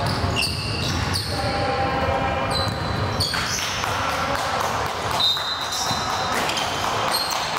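Basketball game in a gym: a ball bouncing on the court amid echoing voices, with a few short high-pitched squeaks.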